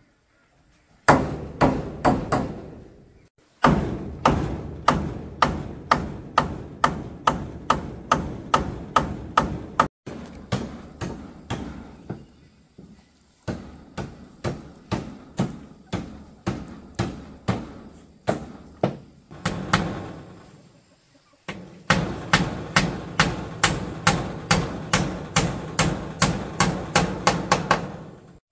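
Hammer driving nails into wooden framing, in several runs of steady blows at about two to three a second with short pauses between runs, the last run faster.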